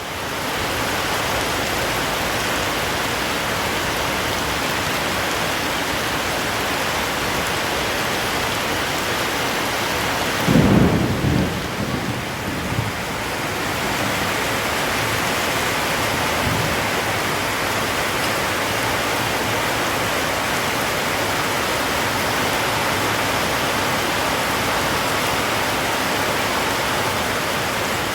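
Heavy rain falling steadily, with a short low rumble of thunder about ten seconds in.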